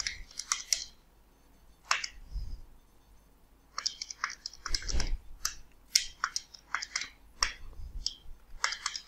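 Irregular clicks and taps, like keys being pressed, in quick clusters with two short pauses, and a soft low thump about five seconds in.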